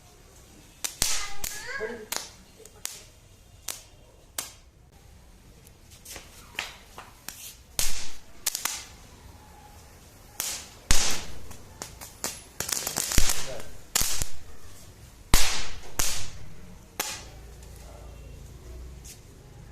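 Chatpat firecrackers going off in a string of irregular sharp pops and snaps, some in quick clusters. The pops die away near the end.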